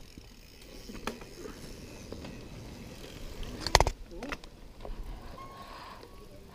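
Mountain bike riding over a rough trail: a steady low rumble with scattered knocks and rattles, the loudest a sharp clatter just before four seconds in.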